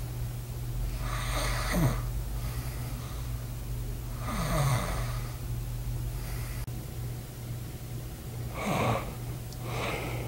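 A sleeping person snoring: three loud snores a few seconds apart, each sliding down in pitch, over a steady low hum.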